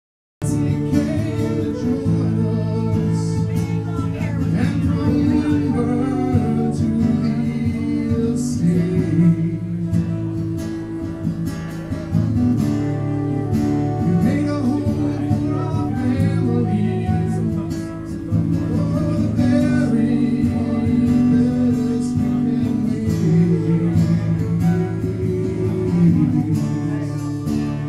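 Live flute and guitar music: a transverse flute plays a melody over a steadily played guitar.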